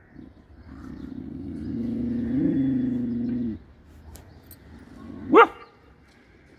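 A black-and-tan dog growling low and steadily for about three seconds, louder as it goes and cutting off suddenly, then giving one sharp bark a couple of seconds later, warning off monkeys.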